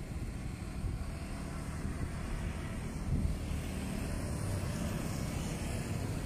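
Street traffic with motor scooters and tuk-tuks driving past: a steady low rumble of engines and tyres, growing a little louder about four seconds in as a scooter passes close.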